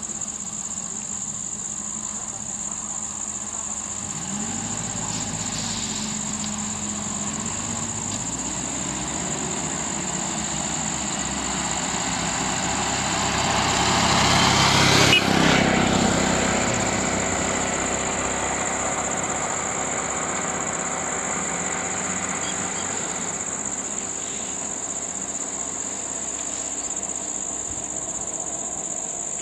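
A minibus engine climbs in pitch as the bus pulls away, then the bus drives past close by, loudest about halfway through, with tyre noise and a falling pitch as it passes. A steady high-pitched insect drone runs underneath.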